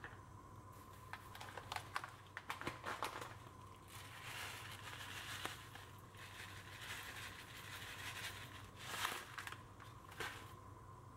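Cumin seeds shaken from a container into a stainless-steel pan of chopped garlic, ginger and green chillies, pattering and rattling on the metal. Scattered clicks from handling come first, then stretches of steadier pouring, with a brief louder rattle about nine seconds in.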